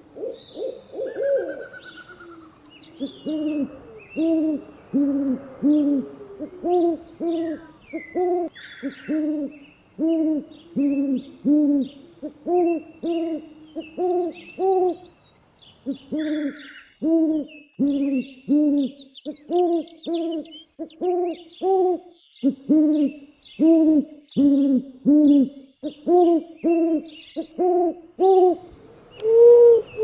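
An owl hooting in a long series of short hoots, each rising and falling slightly in pitch, about two a second in runs broken by brief pauses. Small birds chirp faintly above it.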